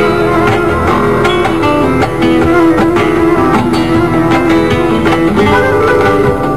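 Live flamenco fusion ensemble playing: acoustic flamenco guitars picking quick, busy lines over fretless bass and cajón.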